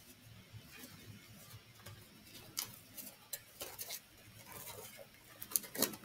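Faint rustling and small snaps of disposable exam gloves being pulled onto the hands, with a few sharper clicks, the clearest near the end.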